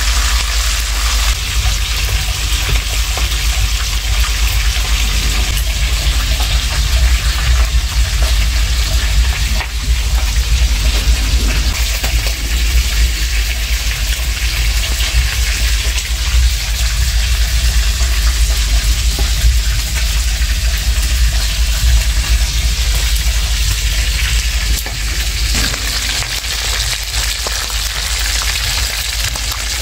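Pieces of fish deep-frying in hot oil in a pan, a steady sizzle, with a low rumble underneath; it eases slightly near the end.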